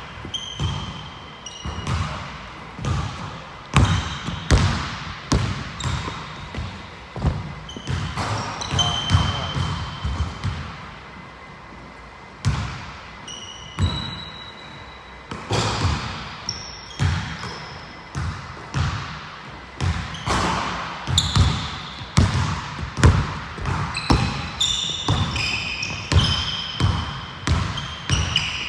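Basketball bouncing on a hardwood gym floor, repeated echoing thuds of dribbling, with short high squeaks of sneakers on the court now and then. The bouncing thins out for a few seconds around the middle, then picks up again.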